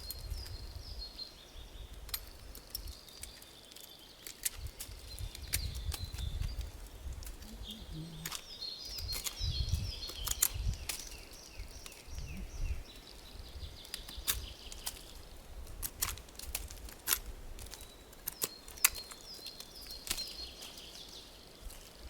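Small birds singing on and off, with scattered sharp clicks and rustling from handling close to the microphone and intermittent low rumbles.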